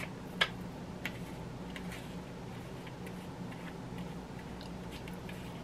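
A few light clicks and taps of kitchen utensils over a low steady hum: one sharper click about half a second in, a smaller one about a second in, then scattered faint ticks.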